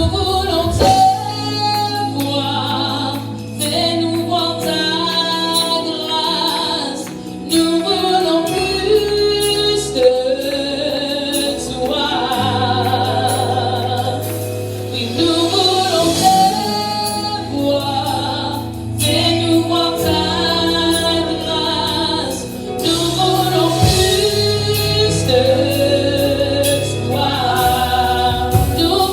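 Gospel worship song: singers with vibrato, a choir joining in, over held bass chords.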